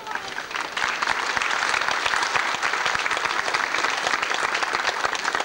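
Large crowd applauding, many hands clapping; it picks up within the first half second and holds steady.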